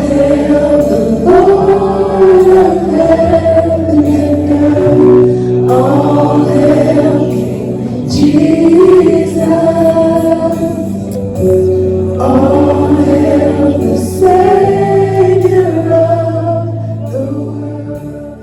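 Gospel music with choir singing over long, held bass notes, fading out near the end.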